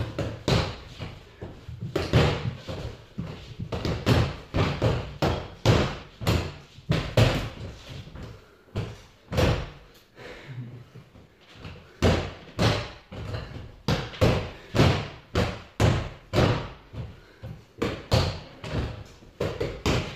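Fists punching a freestanding reflex punching ball on a springy stem: sharp thudding hits in quick bursts of two to four, with short gaps between bursts and a brief lull about halfway through.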